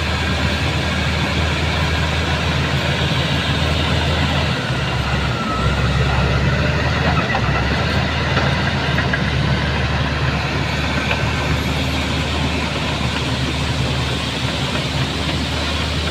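A heavy vehicle engine runs steadily, a low hum under a constant rushing noise.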